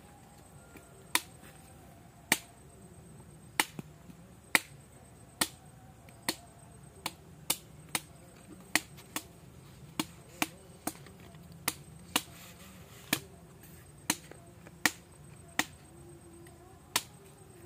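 A machete chopping the husk of a green tender coconut held in the hand: about two dozen sharp chops, irregularly spaced, roughly one or two a second, as the husk is trimmed down to open the nut.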